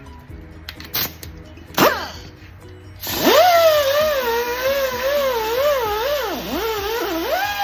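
A power drill motor starts about three seconds in and runs under load, its pitch wavering and sagging as it is pressed, cleaning the wheel's bead mating surface. It is preceded by a few knocks and runs over background music.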